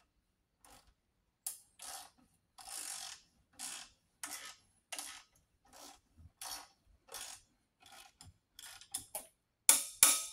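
Icon flex-head ratchet being swung back and forth on a bolt: a run of about a dozen short ratcheting strokes, roughly one every two-thirds of a second, with a few louder sharp clicks near the end.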